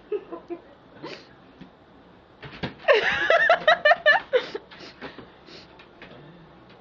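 A person laughing, one loud burst about three seconds in that breaks into several short ha-ha pulses, with a few faint short sounds around it.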